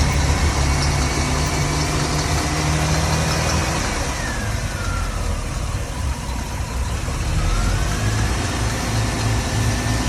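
The inboard engines of a 2003 Regal 2860 Commodore express cruiser running just after a start, with a whine that follows engine speed. The revs sag about four seconds in and pick up again near eight seconds.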